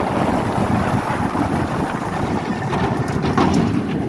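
Steady rush of wind over the microphone with the rumble of a B&M hyper coaster train running along its steel track at speed, and a couple of short sharp sounds near the end.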